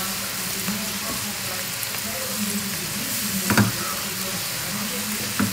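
Spinach leaves and stems sizzling in a frying pan while being stirred with a silicone spatula: a steady frying hiss, with two sharp knocks of the spatula against the pan, about three and a half seconds in and at the end.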